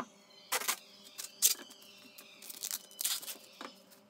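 Plastic cling film crinkling as it is stretched and pressed over a loaf tin: a series of short, sharp rustles.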